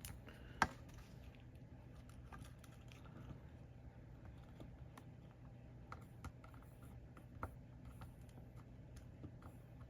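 Faint, scattered small clicks and taps of hand tools against a circuit board while a solder joint is being touched up, with one sharper click about half a second in, over a low steady hum.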